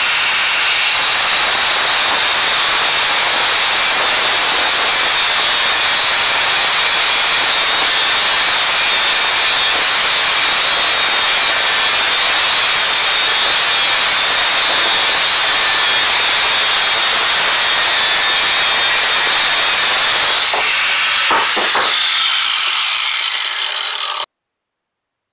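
DeWalt angle grinder with a cut-off wheel cutting through a steel bar held in a vise, a loud steady high grinding hiss. About twenty seconds in the cut ends and the wheel spins down with a falling whine, then the sound stops abruptly.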